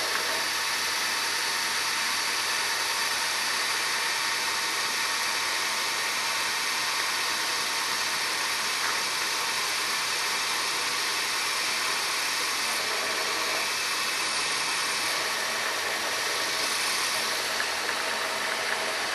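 Milling machine spindle running steadily while a center drill spots the start of the air transfer port hole in an airgun receiver block.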